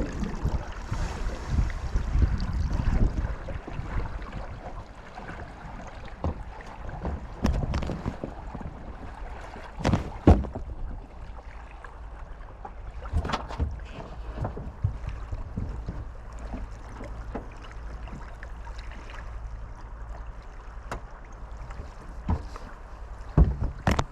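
Small boat's new outboard motor running low and steady on the water, with a few sharp knocks.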